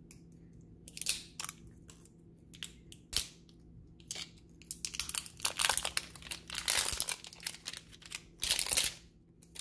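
Clear plastic wrap being peeled and torn off a plastic putty tub by hand, crinkling in irregular bursts that come thickest in the second half.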